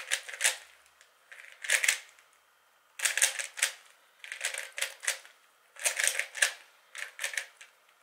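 Plastic 3x3 Rubik's Cube being turned by hand: quick runs of clicking, clacking layer turns in six short bursts, with brief pauses between them.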